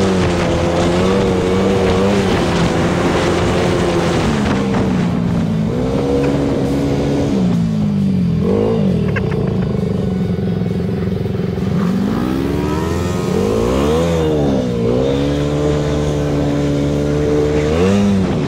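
ATV engine running under way, its pitch holding steady for stretches and rising and falling with the throttle, with quick revs about eight seconds in and again around thirteen to fourteen seconds.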